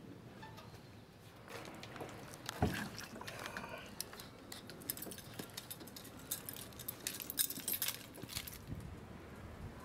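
Hands handling a hose fitting and a plastic water tank: irregular clicks, clinks and rattles, with one sharp knock about two and a half seconds in.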